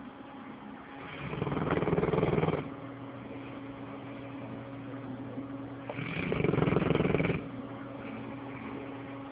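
A dog snoring in its sleep: two long snores about five seconds apart, each lasting about a second and a half.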